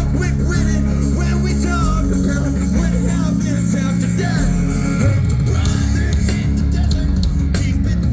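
Live rock band playing, with singing over guitar, bass and drums.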